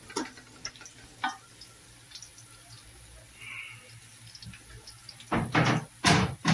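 Sliced onions frying in oil in an aluminium pot, a faint sizzle with scattered small crackles as a wooden spoon stirs them. Near the end come a few loud scrapes of the spoon against the pot.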